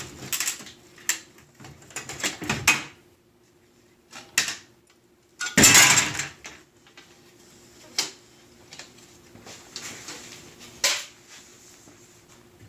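Handling sounds as the broken inner glass pane of an oven door is taken out and a new pane brought in: scattered knocks and clinks, with a longer, louder clatter about six seconds in.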